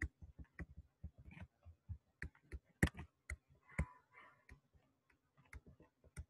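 Stylus clicking and tapping on a pen tablet while handwriting: an irregular run of sharp, light clicks with short gaps between them.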